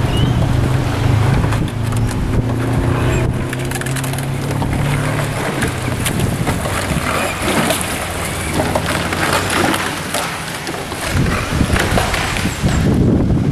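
Wind buffeting the microphone over open water: a low droning hum through the first half, then rough crackling rustle.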